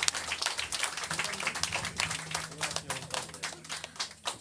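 Small audience clapping, the separate claps distinct, with a low steady hum under the middle of it.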